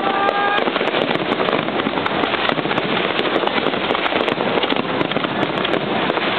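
Aerial fireworks going off in a dense, unbroken barrage: countless small bangs and crackles packed together with no gaps between them.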